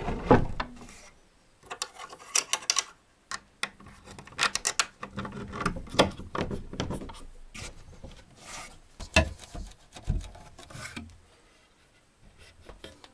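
Irregular rustling, rubbing and clicking of things being handled and moved about, with a couple of heavier low thumps about nine and ten seconds in.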